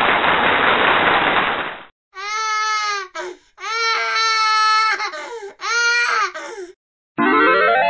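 Crying sound effect played as the 'didn't do well' cue in a classroom quiz game: three or four wailing sobs with short breaks between them. It is preceded by a steady hiss-like noise that cuts off about two seconds in. Near the end a short musical jingle with quick rising runs starts.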